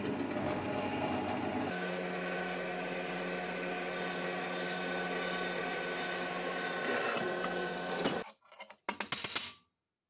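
Drill press running as a twist bit drills a 7 mm hole through a steel plate: a steady machine hum with cutting noise for about eight seconds, then the motor stops. A few light clicks follow near the end.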